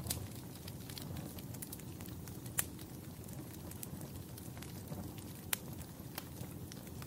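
Fire crackling: a steady low rumble of flames with sharp, irregular pops, the loudest two about two and a half and five and a half seconds in.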